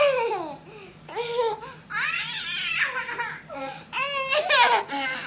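Baby babbling in several short, high-pitched vocal bursts.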